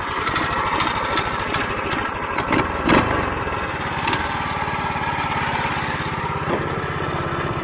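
Small single-cylinder go-kart-style engine of a Ski-Doo Mini Z kid's snowmobile running steadily through its factory-style muffler, just after starting. A few sharp clicks and a louder knock about three seconds in.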